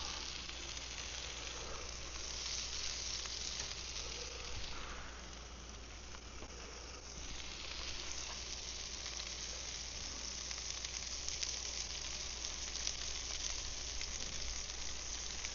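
Buttered yellowfin tuna steak sizzling steadily on a hot grill. The sizzle eases a little about five seconds in and picks back up a couple of seconds later.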